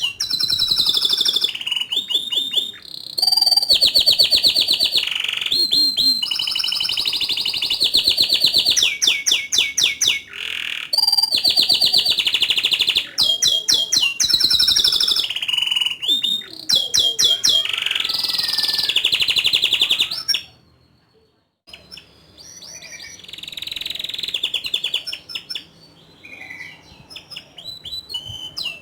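Domestic canary singing long phrases of rapid trills and rolls. The song breaks off briefly about two-thirds of the way through, then resumes more softly.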